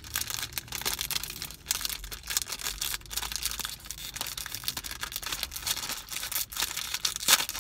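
Clear plastic cookie wrapper crinkling and crackling as it is worked open by hand, with one louder crackle near the end.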